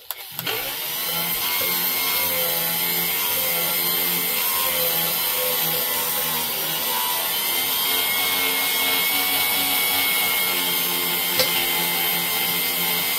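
Small DeWalt power tool spinning a blue abrasive buffing wheel against the aluminum combustion chamber of a Trick Flow 270 cylinder head, polishing it: the motor starts just after the beginning and then runs steadily, with the buff rubbing on the metal. A brief tick sounds near the end.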